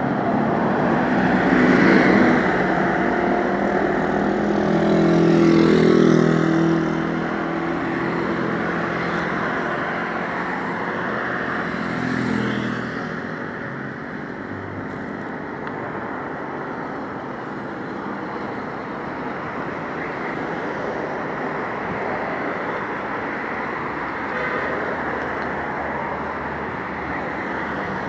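Road traffic: vehicles passing by on a road. Two louder passes come in the first seven seconds, the engine pitch falling as the second goes past, and a smaller one comes about twelve seconds in. After that there is a steadier, quieter rush of traffic.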